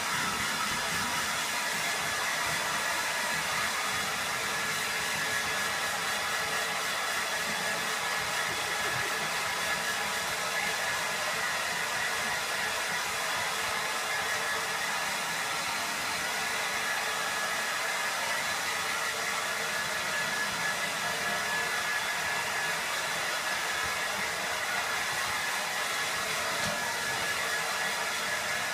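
Handheld hair dryer running steadily, blowing air over a dog's coat: an even rush of air with a steady high tone over it.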